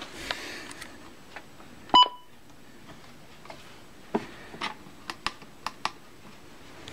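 A single short electronic beep about two seconds in, followed by a string of sharp clicks, over a faint hiss.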